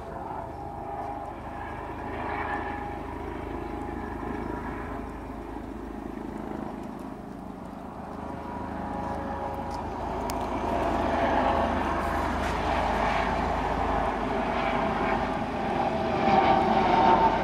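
Road traffic on the street alongside, a steady engine-and-tyre drone that grows louder about ten seconds in and again near the end as vehicles pass close by.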